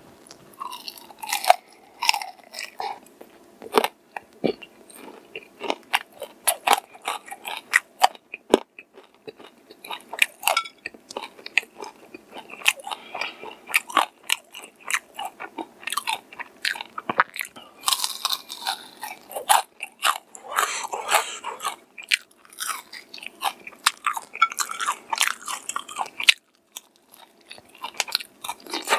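Close-miked biting and chewing of crispy fried chicken with a crumbly chili-flake coating: a bite, then steady crunchy chewing full of sharp crackles, with a brief lull near the end.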